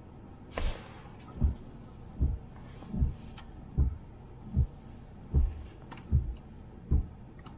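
Nine dull low thumps, evenly spaced a little under a second apart, heard inside a moving car's cabin.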